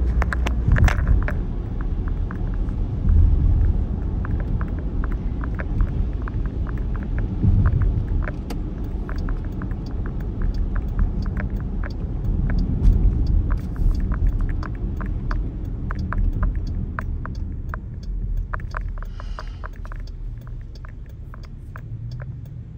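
Car cabin road noise on a wet road: a steady low rumble, with raindrops tapping on the windshield and roof as many small irregular ticks. The rumble eases off near the end as the car slows.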